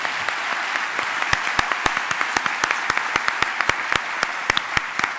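Audience applauding, with sharp single claps close to the microphone standing out at about three to four a second.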